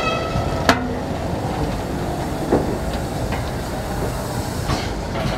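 Steam locomotive rolling slowly past at close range, its running gear rumbling and clanking. A brief squeal comes right at the start, and sharp clicks about every two seconds sound as the wheels cross rail joints.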